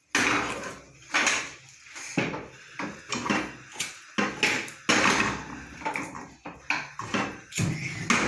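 A cooking pot being set down and handled on a gas stove: a string of irregular knocks and clatters, the loudest right at the start and more at about one, two, five and nearly eight seconds in.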